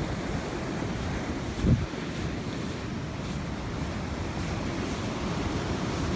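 Surf washing on the beach and wind rumbling on the microphone, with one brief low sound about a second and a half in.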